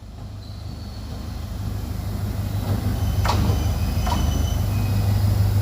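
Sri Lanka Railways Class S13 diesel multiple unit approaching and running through a station, its low engine drone growing steadily louder. Two sharp clacks come about three and four seconds in, with faint high wheel squeal.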